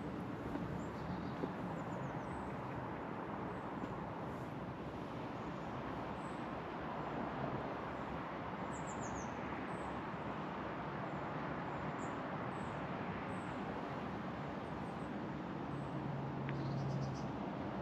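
Outdoor ambience: an even hiss with scattered short, high bird chirps throughout, and a brief low hum near the end.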